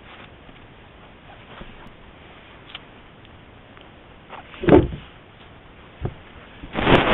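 Bobcat kitten nosing and rubbing against a Browning trail camera, right at its microphone: a faint steady hiss, then a loud scuffing bump a little past halfway and a longer one near the end, with a short knock between.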